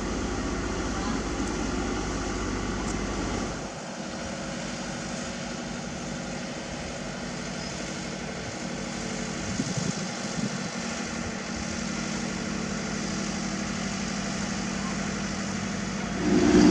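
Diesel engines of road-paving machinery running steadily, a drone with a few steady tones through it. It eases a little about three and a half seconds in, and a louder, nearer engine comes in near the end.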